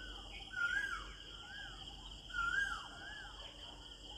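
A bird whistling short notes, five in all, each rising then falling, over a steady high insect drone.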